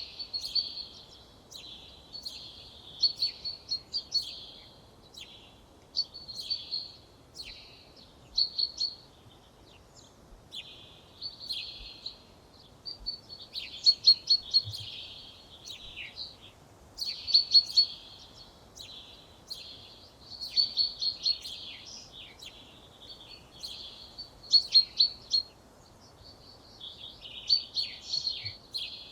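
A songbird singing short phrases of rapid, high, repeated notes, one phrase every two to three seconds, over a faint background hiss.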